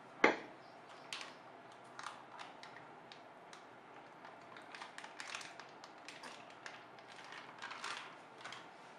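A sharp knock just after the start, then a scatter of light, irregular taps and clicks from cooking prep: utensils and vessels being handled.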